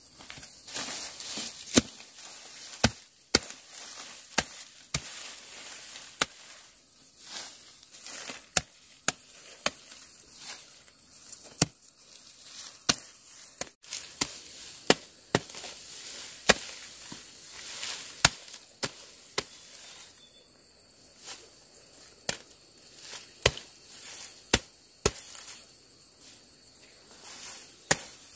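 A hooked hand blade chopping through dry grass and stalks at ground level: irregular sharp chops about once a second, with rustling of the stalks between strokes.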